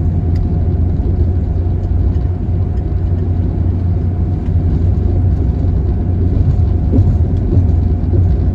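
Steady low road and engine rumble heard from inside a moving vehicle's cabin, with a faint steady hum above it.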